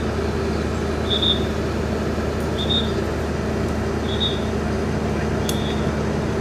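Fire truck's diesel engine running at a steady idle, with a short high-pitched electronic beep repeating about every one and a half seconds.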